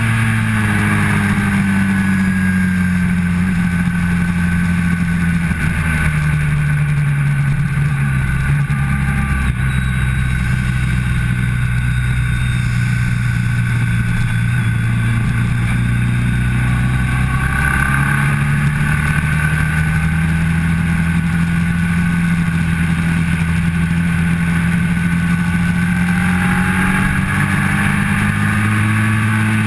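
Motorcycle engine at speed on a race track, heard from an onboard camera with wind rushing over the microphone. The engine note holds fairly steady through a long corner, lower in the middle, then climbs in pitch over the last few seconds as the bike accelerates out onto the straight.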